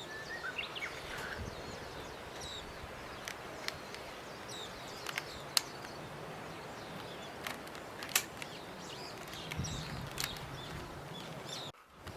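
Outdoor ambience: a steady hiss with birds chirping now and then, and a few sharp clicks.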